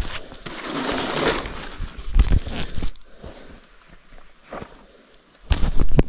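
Rustling and crackling of forest floor litter and moss as a large mushroom is picked from the ground, busier in the first half. A knock comes about two seconds in, and a louder handling thump near the end.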